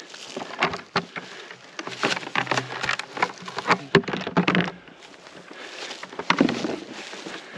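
Irregular rustling, crunching and knocks of movement and handling in woodland litter, with a low buzz from about two to five seconds in.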